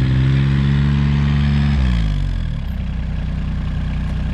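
A vehicle engine running at raised revs, then dropping to a lower, steady speed about two seconds in.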